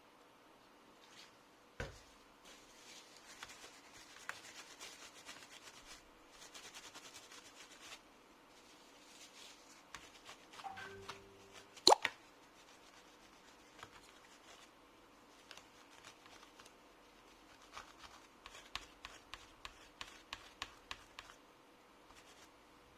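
Small handling noises from work on a laptop's heatsink and motherboard during a thermal-paste change: soft rubbing early on, scattered light clicks and ticks, and one sharp click about halfway through.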